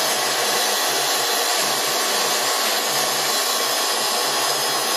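Warner & Swasey M4630 turret lathe running, with a steady whir from its spindle drive.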